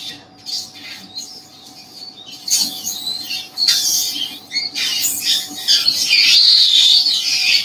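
Surgical suction slurping as it draws blood and fluid out of the opened ear canal and tympanic bulla, in short bursts at first and steadier and louder over the last few seconds.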